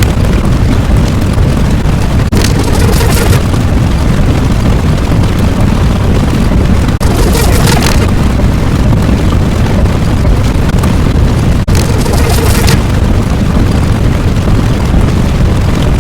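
Loud, continuous deep rumbling sound effect, like a heavy explosion or engine roar. About every four and a half seconds it drops out for an instant and comes back with a second-long burst of hiss, a looping pattern.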